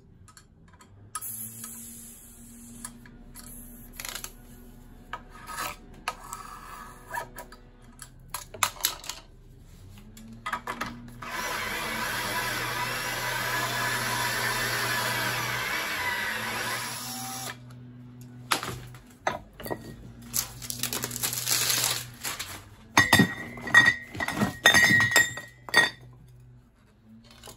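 Makita cordless drill driver running steadily for about six seconds, a socket bit spinning the valve fitting out of a nitrous oxide cream charger canister clamped in a vise. Handling clicks before it and a run of sharp metallic clinks near the end.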